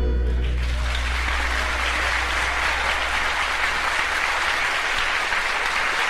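Live audience applauding at the end of a gospel song. The band's final low chord dies away in the first second while the clapping builds and then holds steady.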